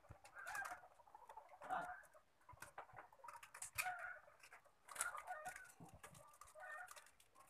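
Faint scattered clicks and rustles of electrical wire being twisted and handled by hand, with faint chicken clucking in the background.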